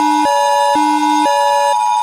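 Electronic fire alarm tone: a steady high beep with a second tone switching between low and high every half second, the switching stopping near the end.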